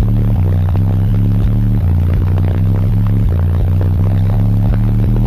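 Six Resilient Sounds Platinum 15-inch subwoofers playing very loud, deep bass notes that step from one pitch to another, heard from inside the car, with a faint scratchy clatter over them.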